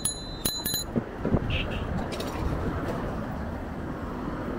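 A bell rings several quick strokes in the first second. After that comes the steady noise of busy road traffic, heard from the roadside while riding.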